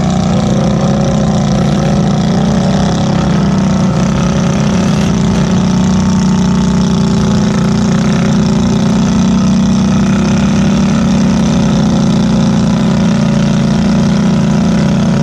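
Can-Am Outlander 450 ATV's single-cylinder engine held at steady high revs as it churns stuck in deep mud.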